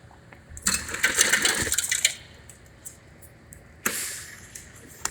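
Self-serve soda fountain dispensing Coca-Cola into a cup: a clattering, rushing pour about a second and a half long, then a second shorter burst near the end.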